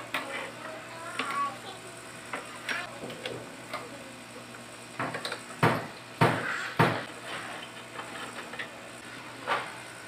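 Clicks and clatter of a plastic generator frame panel being handled and fitted against the metal alternator housing, with three louder knocks about five to seven seconds in.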